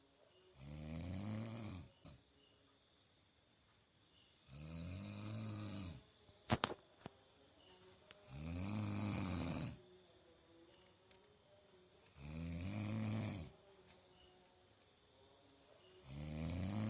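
A sleeping person snoring: four snores about four seconds apart, each a pitched breath that rises and falls, with a fifth starting near the end. A sharp click about six and a half seconds in, between snores.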